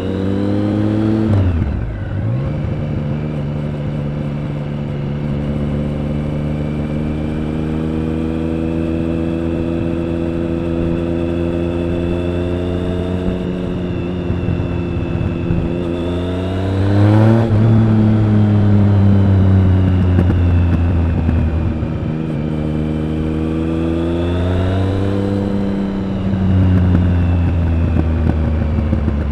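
Triumph Speed Triple 1050's inline three-cylinder engine and exhaust under way on the road. The revs climb, drop sharply at a gear change about 1.5 s in, and hold steady while cruising. The revs climb sharply again around two thirds of the way through, then ease off, with another rise and fall near the end.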